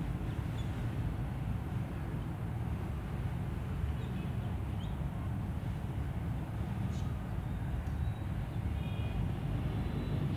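Steady low background rumble, with a few faint, short high chirps about halfway through and again near the end.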